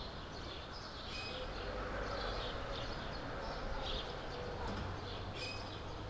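Outdoor street ambience: small birds chirping and calling on and off over a steady low hum.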